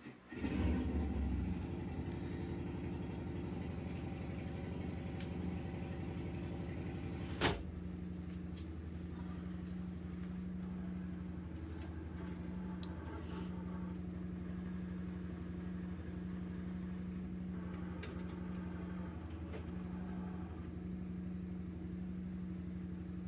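A steady low mechanical hum, like a motor or fan, that switches on about half a second in and then runs evenly, with a single sharp click about seven and a half seconds in.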